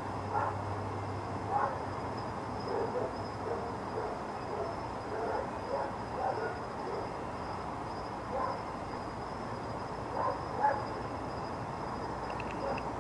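A distant dog barking intermittently, about ten short barks spread irregularly, the loudest about one and a half seconds in and near the end. Under them is a steady outdoor hiss with a faint high whine.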